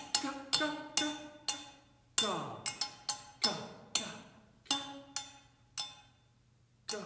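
Sticks striking a frying pan in an irregular run of about a dozen sharp hits, each ringing briefly, one of them with a wide falling sweep in pitch; a short pause comes before a last hit near the end.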